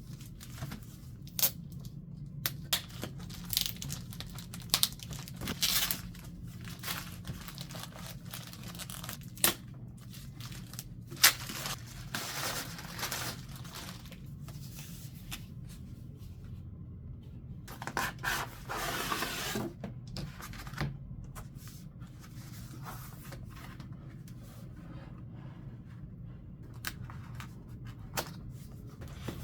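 Keyboard box packaging being opened and handled: tearing and crinkling in scattered short bursts, with a longer rustle about eighteen seconds in.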